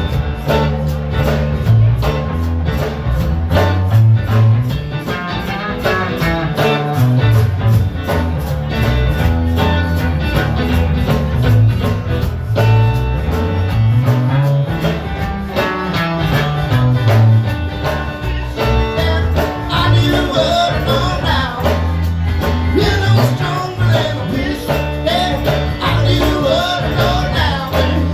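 A band playing bluesy rock with a walking bass line under guitar and a steady beat.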